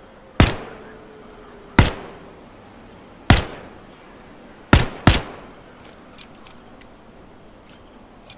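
Pistol-shaped lighter clicked five times, each a sharp snap with a short ring-out, spaced about a second and a half apart; the last two come close together, followed by a few faint ticks.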